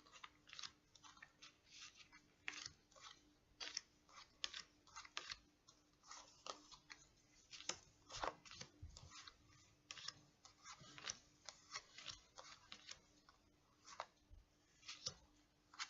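Tarot cards being handled and laid down one by one as the deck is sorted: faint, irregular clicks and taps of thin cards, a few each second.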